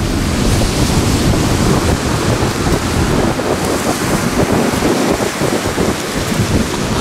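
Steady, loud rush of wind on the microphone, with ocean surf behind it.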